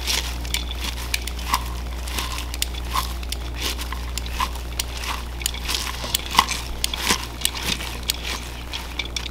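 Shredded raw cabbage salad being tossed with silicone-tipped tongs in a large bowl: crisp rustling and crunching of the cabbage, with irregular light clicks several times a second.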